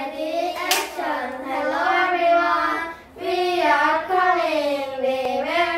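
Children singing a song together in two long phrases with held, sliding notes and a short pause for breath about three seconds in. A sharp click sounds near the start.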